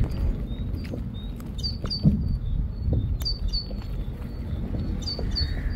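A small bird chirping over and over in short, high notes over a steady low rumble, with a soft bump about two seconds in.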